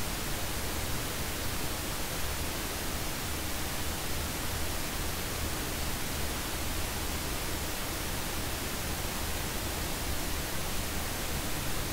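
Steady static hiss with a low hum beneath it, the background noise of a recorded phone line with nobody speaking.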